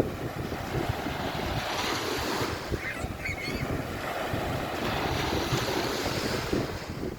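Surf washing on a beach, with wind gusting on the microphone.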